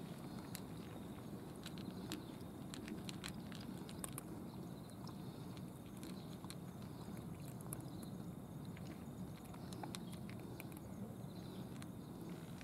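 Two cats eating from plastic dishes: irregular small crunching clicks of chewing, over steady low background noise.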